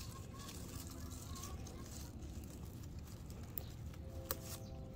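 Faint rustling of leaves as a hand picks through a pot of leafy greens, with a couple of small snaps near the end, over a steady low rumble.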